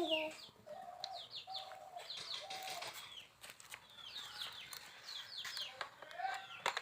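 Faint bird calls: quick falling chirps, with a few short clucking notes near the start.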